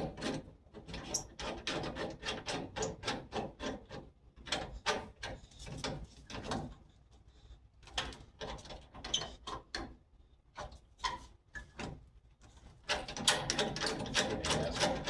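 Hand rivet nut tool being worked to set a rivet nut in a car door's sheet metal: rapid metallic clicking and ratcheting, several clicks a second, thinning out in the middle and busier again near the end. The nut is being crimped in several squeezes because the tool won't collapse it in one go.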